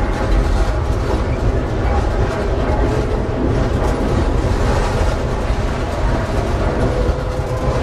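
Tatra T3SU tram running along the track: a steady low rumble of wheels on rails and running gear, with a faint steady hum.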